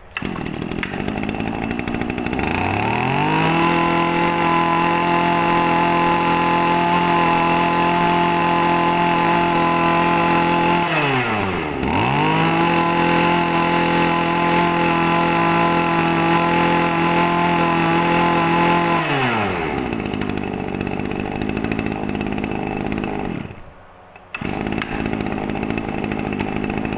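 Shindaiwa 230 brush cutter's small 23cc two-stroke engine idling, then revved to high speed and held for several seconds twice, dropping back to idle between and after. The sound drops out briefly near the end.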